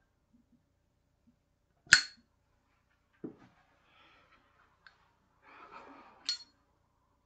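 Metallic clinks of a Zippo lighter being handled. A loud ringing clink comes about two seconds in, then a dull knock, a tiny click, a short scratchy rasp and a second ringing clink near the end.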